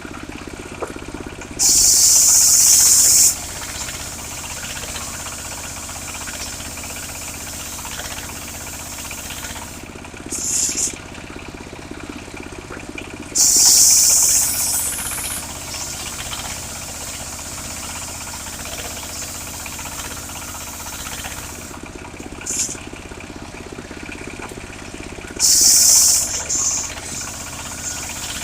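Engine of a portable circular sawmill running steadily, with four loud, high hissing bursts as the blade cuts into a petai log, each lasting one to two seconds.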